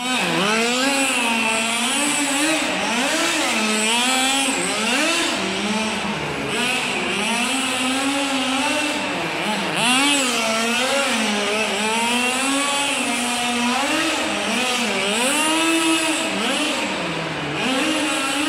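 Kyosho FW05R nitro RC car's small glow engine running hard, its revs rising and falling over and over as the throttle is worked through drifts.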